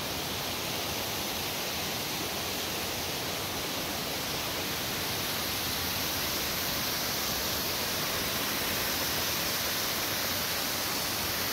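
Water pouring over a small concrete dam spillway: a steady rushing roar of falling water.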